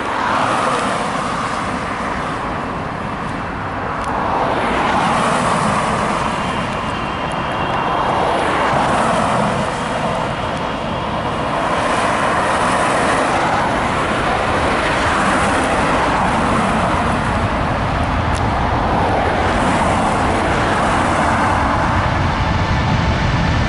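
Boeing 777-300ER's twin GE90-115B turbofan engines at takeoff power as the airliner makes its takeoff roll. The jet noise is a loud, continuous rush that swells and dips at first, then grows deeper and fuller from about halfway through.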